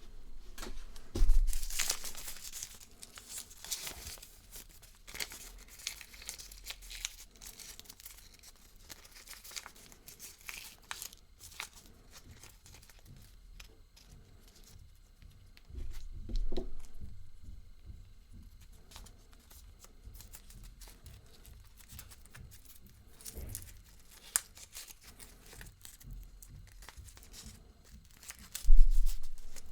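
Kinder Surprise egg wrapping crinkling and tearing in close-up handling, a steady crackle of foil and plastic. It is broken by a few louder bumps: about a second in, midway through and near the end.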